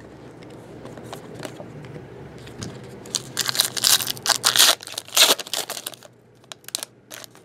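Foil wrapper of a trading-card pack being torn open by hand, crinkling and tearing for about three seconds from about three seconds in, then a few short crackles of the foil near the end as the cards come out.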